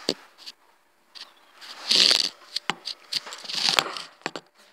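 Handling noise from a phone held close to its microphone: rustling and a string of sharp knocks and clicks, with two loud breathy hisses about two seconds and three and a half seconds in.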